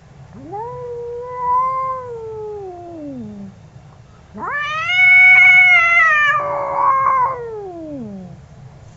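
Angry cat yowling: two long, drawn-out caterwauls, each rising, held, then sliding down in pitch. The second starts about four seconds in, is louder and higher than the first, and turns harsh and raspy partway through.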